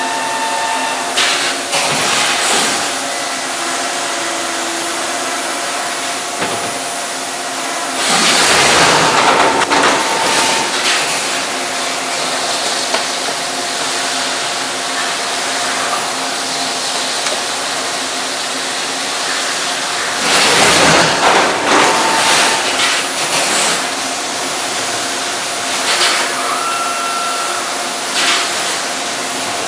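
Brother TC-32BNFT CNC tapping center milling and then drilling a steel block under coolant spray: a steady hiss of coolant and cutting over a faint steady machine whine. Two louder noisy swells come about 8 and 21 seconds in.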